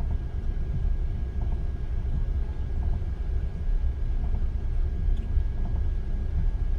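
Steady low rumble of road traffic on a wet street in heavy rain, with a faint high steady tone underneath.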